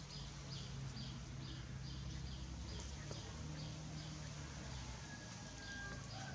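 Chicks peeping: short, high calls repeated about two a second, pausing about halfway through and starting again near the end, over a steady low hum.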